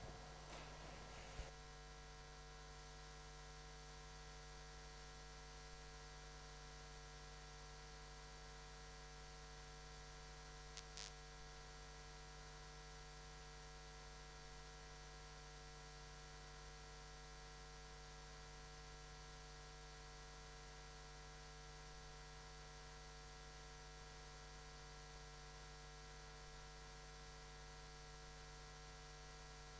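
Near silence with a steady electrical mains hum. A few faint clicks come in the first second or so, and a brief pair of clicks about eleven seconds in.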